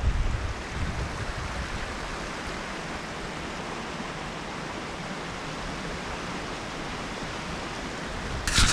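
Spring-fed stream running steadily, with a brief sharp noise near the end.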